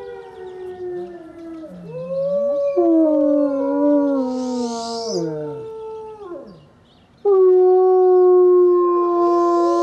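Gray wolves howling: several long howls overlap at different pitches, each sliding down as it ends. About seven seconds in a loud, steady howl starts suddenly.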